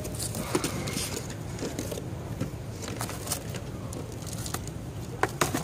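Handling noise: scattered light clicks and rustling over a steady low hum, with two sharper clicks near the end.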